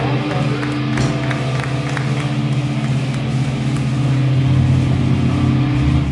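Live rock band playing loudly: a held, distorted low chord drones on under drum and cymbal hits, then breaks off at the very end.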